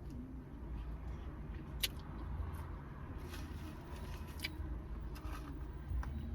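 Steady low rumble of an idling car, heard from inside the cabin, with a few faint clicks of chewing.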